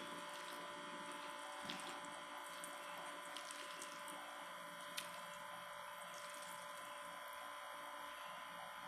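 Quiet steady hiss with a steady electrical hum, broken by a few faint clicks.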